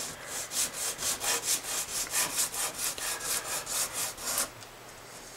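A bone guitar nut rubbed back and forth on 220-grit sandpaper laid over a flat steel plate: about ten passes, some twenty quick scraping strokes at four to five a second, stopping about four and a half seconds in. This is light sanding of the nut's face to thin it for a snug fit in the slot.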